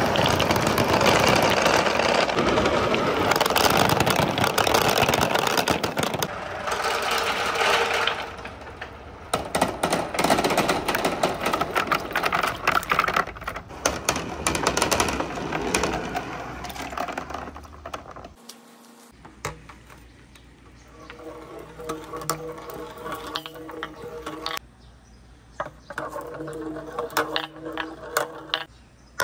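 Dozens of glass marbles rolling and knocking down chutes and a track, a dense clattering rattle that thins out after about eight seconds and dies away at around eighteen seconds. After that there are only scattered, quieter clicks.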